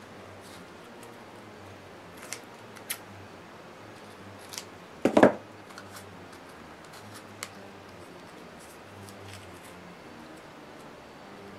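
Craft scissors and paper napkin being handled on a tabletop: a few light snips and clicks, with one louder clunk about five seconds in.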